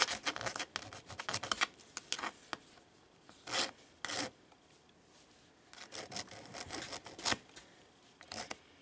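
Hand file rasping across the aluminium edge of an iPad Air's housing in quick short strokes, smoothing a bent corner that is not yet flush. The strokes come in bursts, with a pause of a second or so in the middle.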